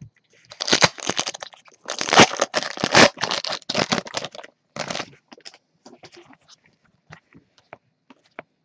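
Plastic wrapper of a Panini Prizm basketball trading card pack being torn open and crinkled, a dense crackling lasting about four seconds, then sparse light clicks and rustles as the cards are handled.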